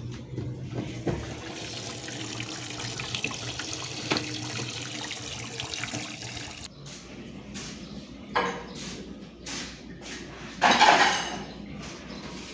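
Water rushing into a washing machine as it fills for a load of clothes: a steady rush that breaks into shorter spurts about seven seconds in, with one louder spurt near the end.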